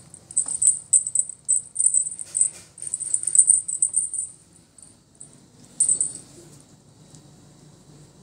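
A small bell on a cat wand toy jingling in quick, irregular shakes as the toy is waved. It stops about four and a half seconds in, with one more brief shake about six seconds in.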